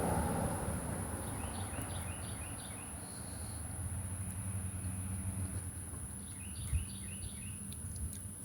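A bird chirping in two short runs of quick repeated notes, over a steady low rumble of background noise and a constant thin high whine.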